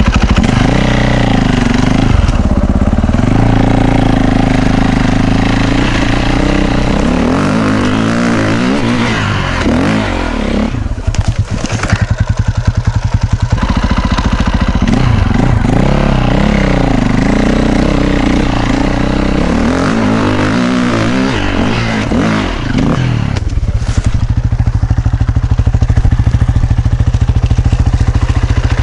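KTM EXC 450 enduro bike's single-cylinder four-stroke engine, revving up and down as it is ridden over rough ground. Over the last few seconds it is held at steady high revs while the bike climbs a steep dirt bank.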